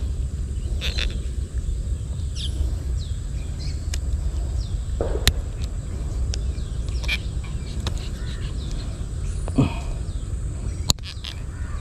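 Birds calling with many short chirps over a steady low rumble, with a few sharp clicks.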